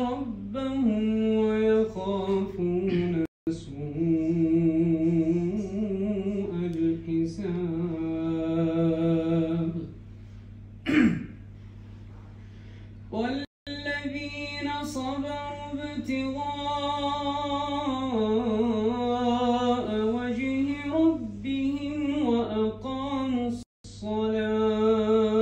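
A man reciting the Quran in a melodic chanting style, drawing out long held, ornamented notes in phrases separated by brief pauses for breath. The longest pause comes about ten seconds in, with a sharp intake of breath. A steady low hum runs underneath.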